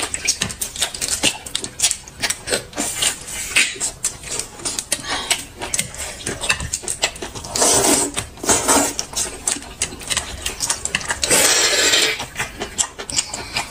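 Close-up eating sounds: fast irregular clicks and smacks of chewing and utensils, with two short louder noisy bursts about 8 and 11.5 seconds in.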